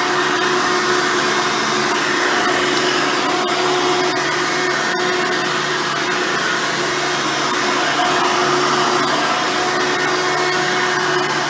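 Hoover Soft & Light Supreme vacuum cleaner with a 7-amp motor, running steadily with a constant hum.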